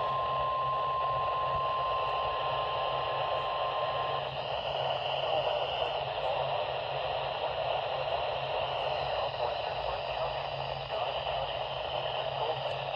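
Emergency Alert System attention tone, one steady single-pitched beep, cuts in over a radio broadcast and stops about four seconds in. It leaves steady radio static hiss with a low hum, dead air before the alert message.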